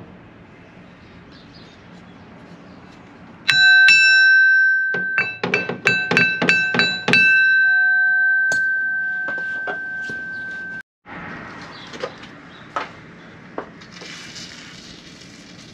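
Hammer blows on steel combine auger drive parts, ringing with a clear bell-like tone. There is one blow, then a quick run of about eight, and the last one rings on for a few seconds before it stops abruptly. After that comes the hiss of an aerosol spray can with a few light clicks.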